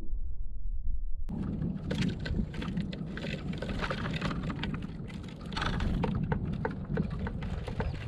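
A low rumble for about the first second, then a dense patter of small clicks and taps: sparrows pecking and scratching at sunflower seeds on the wooden feeder tray.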